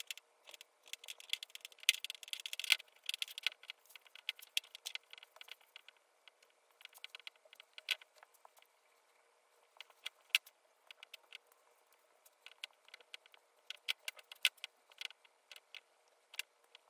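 Heated straightening brush drawn repeatedly through damp hair: faint, irregular crackling and rustling with a few sharper clicks.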